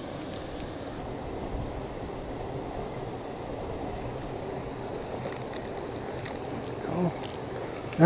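Steady low rushing of flowing creek water and open air. A few faint light clicks come from a spinning reel being cranked in the last few seconds, and there is a short voice sound about seven seconds in.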